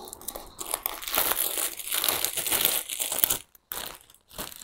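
Clear plastic plant sleeve crinkling and rustling as a potted plant is lifted out of a shipping box and handled. The crinkling is densest in the first three seconds and breaks off suddenly about three and a half seconds in, with a couple of short rustles after.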